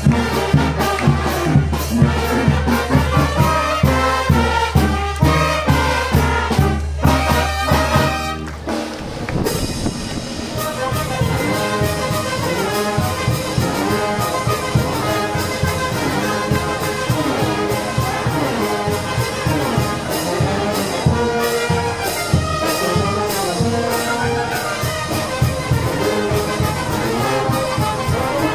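Brass band music with trumpets, trombones and a sousaphone. For about the first nine seconds a strong regular beat with heavy bass runs under it. Then it changes abruptly to a different brass tune without the heavy bass.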